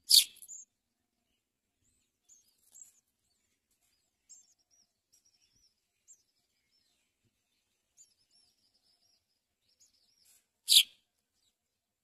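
House sparrows chirping at a nest: two short, sharp, loud chirps about ten seconds apart, with faint, high, wavering twittering in between.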